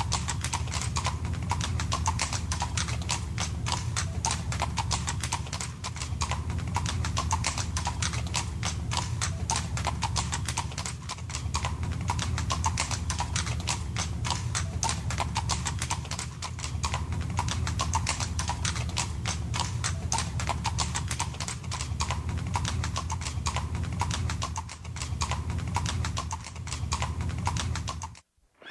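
Horse hooves clip-clopping in a steady walking rhythm over a low steady hum. The sound cuts off abruptly just before the end.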